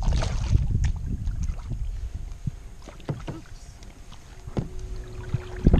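Small knocks and bumps on a plastic kayak hull as fishing gear is handled on board, with water sloshing against the hull in the first second.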